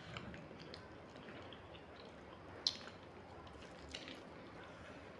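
Faint wet eating sounds of chicken leg pieces being pulled apart by hand and chewed, with a few soft clicks, the sharpest one near the middle and another about four seconds in.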